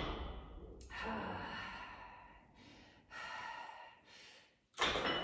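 A woman's heavy breathing from lifting a barbell: several forceful, breathy exhales of effort, the loudest one near the end.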